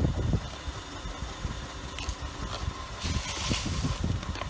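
Crushed Pringles crumbs pouring and sliding out of their cardboard cans onto asphalt: a dry rustling hiss about three seconds in, with a light tap earlier, over a constant low rumble.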